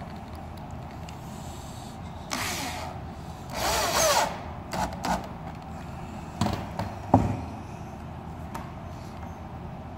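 Power drill-driver driving a wood screw down through a wooden birdhouse roof board. A short run comes first, then a longer, louder run about three and a half seconds in, and two brief bursts that seat the screw. Two sharp knocks follow.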